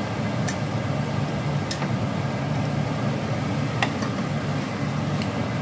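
Chicken wings simmering in a bubbling sauce in a frying pan, with about four sharp pops over a steady low hum.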